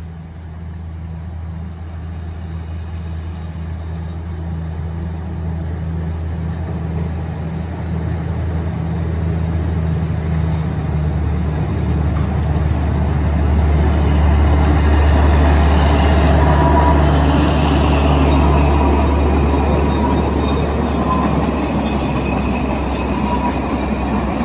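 Narrow-gauge diesel locomotive running steadily as it approaches with a cargo train, its low drone growing louder and peaking about two-thirds through. Loaded flat wagons then roll by on the rails, with a thin wheel squeal on the curve.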